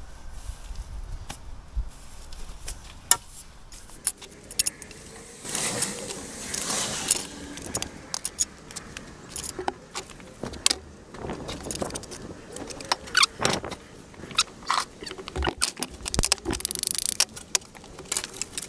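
Steel brick trowel scraping and spreading mortar and knocking perforated engineering bricks down into the bed while a course is laid, with a rapid, irregular run of sharp clinks and knocks and a few longer scrapes.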